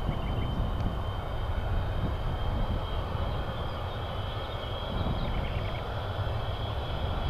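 Jet fighter engine heard at a distance: a steady low rumble with a thin high whine held throughout, no passing swell.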